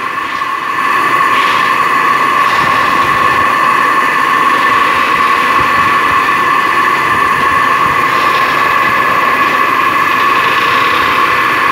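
Electric motor and belt-driven gear reducer of a three-roll plate rolling machine running steadily with a constant whine, turning the rolls through a chain drive as a steel ship plate is rolled into a curve.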